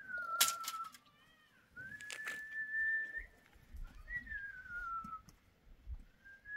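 A person whistling: long level notes alternate with slow downward-sliding notes. Two short bursts of hiss come about half a second and two seconds in.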